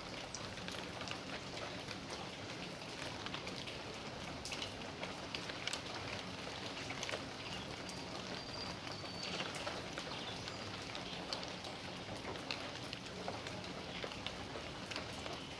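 Steady rain falling on a yard, with many separate drops ticking on surfaces over an even hiss.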